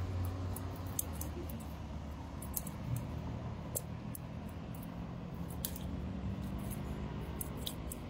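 Water dripping and splattering from a wet cast net held up over pavement, with a few sharp ticks, over a steady low hum.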